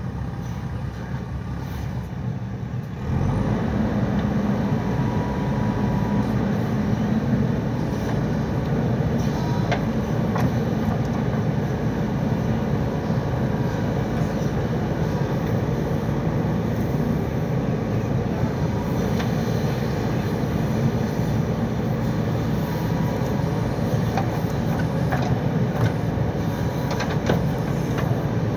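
JCB backhoe loader's diesel engine running under working load, getting louder about three seconds in and then holding a steady drone.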